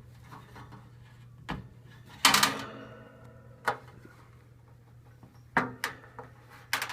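The wire cage and metal cabinet of a 1966 GE box fan being handled, giving a series of knocks and clicks. One loud metallic clank about two seconds in rings briefly.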